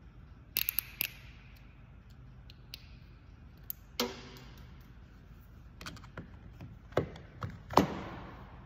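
Metal hand tools clinking: a ratchet and socket being handled and fitted together, making a handful of sharp clicks and knocks. One knock about four seconds in rings briefly, and the loudest comes near the end with a long echoing tail.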